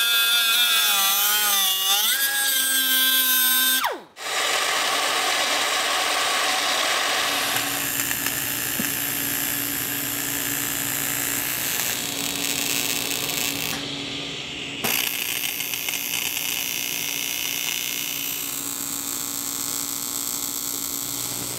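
An air-powered cut-off wheel whines as it cuts through a metal fuel rail, its pitch wavering and dipping under load, then stops abruptly about four seconds in. After that a TIG welder gives a steady hiss with a low buzz as a fitting is welded onto the rail.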